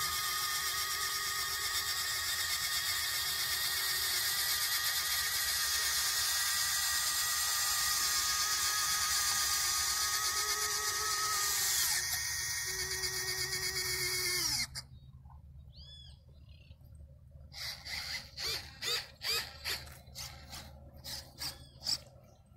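Electric wing-folding mechanism of an RC F4U Corsair model, its small gear motors whining steadily as the wings swing out from folded to extended. The whine drops in pitch about twelve seconds in, drops again, and cuts off suddenly a little before halfway. A string of short, quieter bursts follows near the end.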